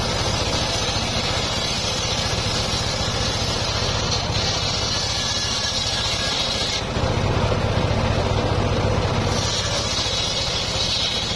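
Homemade bench-mounted circular saw ripping a teak plank. The blade hisses through the wood over the steady drone of its driving motor. The cutting sound drops away for about two seconds past the middle, leaving mostly the motor hum, then resumes.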